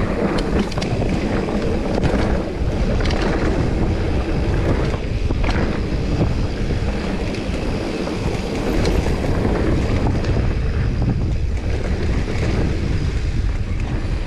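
Wind buffeting a handlebar-mounted GoPro's microphone as a mountain bike rolls fast down a dirt trail: a loud, steady rumble, with scattered clicks and rattles from the bike over the bumps.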